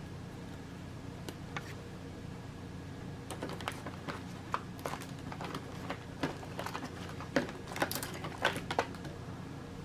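Hands handling a smart light switch and its parts, making irregular light clicks and taps, sparse at first and busier from about three seconds in.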